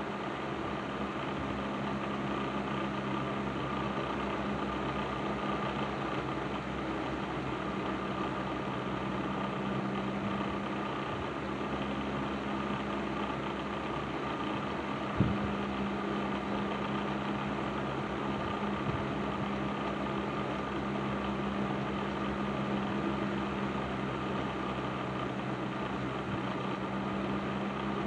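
Patton 12-inch box fan with its Fasco motor running steadily after servicing: a low motor hum with blade air noise and a faint higher tone, running smoothly. One short click about halfway through.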